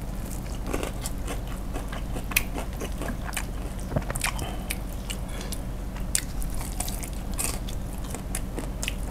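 Close-miked biting and chewing of crispy fried chicken coated in spicy sauce, with irregular crunches and crackles of the still-crunchy crust.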